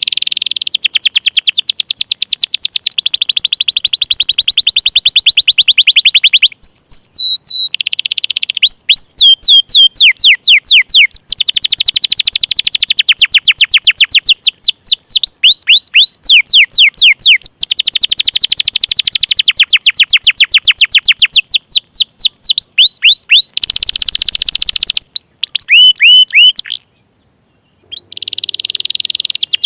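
Domestic canary singing a loud, continuous song of fast trills. The phrases change every few seconds, from rapid repeated notes to quick downward-sweeping notes, and the song breaks off for about a second near the end.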